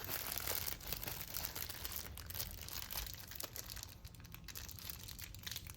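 A packaging bag crinkling and rustling steadily as it is handled and pulled open, with many small crackles.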